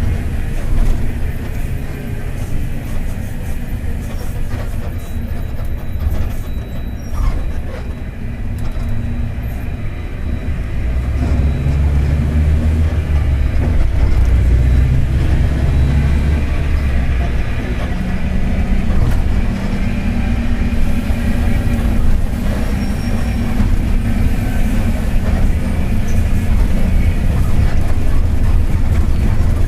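Mercedes-Benz OF-1721 city bus running on the move: the diesel engine and driveline make a continuous low rumble, with the driveshaft (cardan) droning low. The rumble grows louder about a third of the way in as the bus pulls harder.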